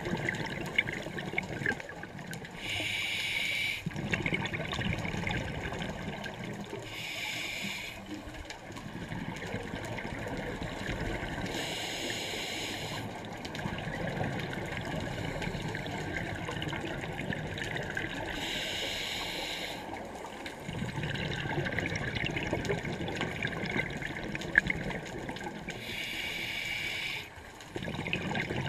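A scuba diver breathing through a regulator underwater: five hissing breaths, each about a second long and five to seven seconds apart, with low bubbling and gurgling between them.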